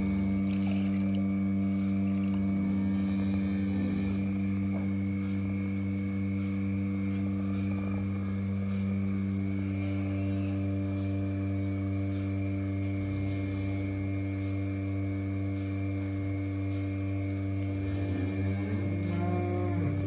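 Steady low hum of a milking machine's vacuum pump, with a cow mooing briefly near the end.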